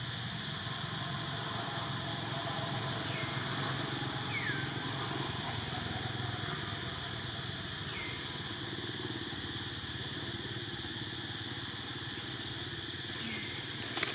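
Forest ambience: a steady high drone with a low engine-like rumble underneath, and four short falling chirps, one every few seconds.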